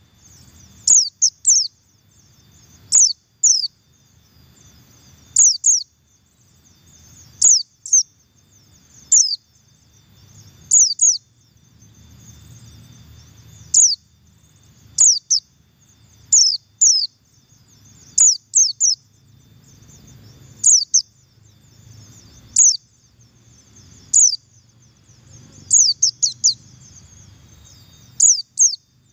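Buxtoni white-eye (pleci) giving its double call: short, sharp, high notes that fall in pitch. They come mostly in pairs or threes, every one to two seconds. It is a lure call meant to set other white-eyes calling.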